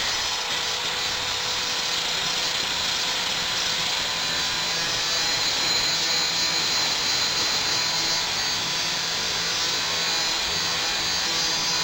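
Handheld angle grinder running steadily as it grinds the edge of a steel sickle blade: a continuous motor whine over a grinding hiss, slightly louder about halfway through.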